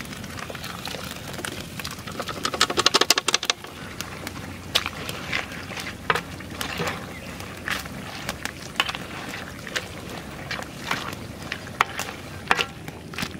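Mustard paste going into hot oil with fried mrigal fish in a large wok: a steady sizzle as the paste cooks. About two seconds in there is a rapid run of metal-spoon stirring strokes against the pan, then scattered sharp clinks and ticks.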